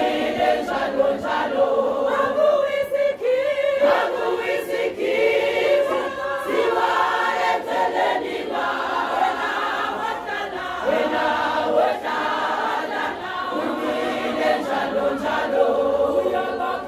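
A large group of women singing together as a choir, without instruments, in several voices.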